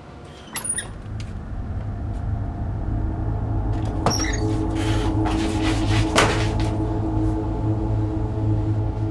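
A door latch clicks and the door is pulled open, then a low droning tone swells up over a few seconds and holds, with a few knocks and clatters partway through.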